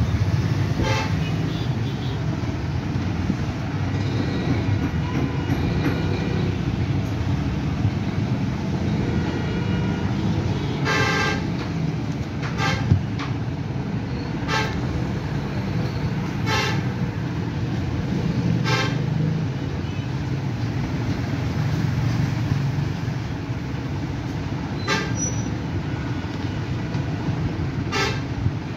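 Steady low rumble of road traffic, with short vehicle horn toots sounding every few seconds and one sharp knock about a third of the way through.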